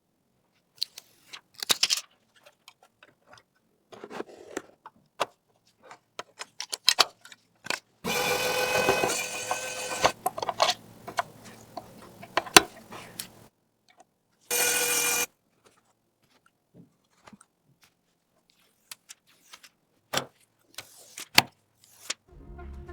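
Scattered clicks, taps and clatter of computer hardware being handled and fitted, with a louder steady whirring stretch for several seconds in the middle and another short burst a little later.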